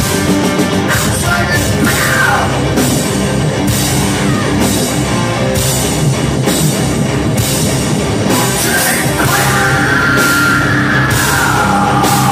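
Heavy metal band playing live at full volume: distorted guitars, bass and drums with cymbal hits on a steady beat, and held guitar notes in the second half.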